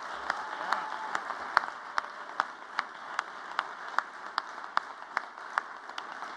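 Audience applauding, with single sharp claps standing out about two or three times a second.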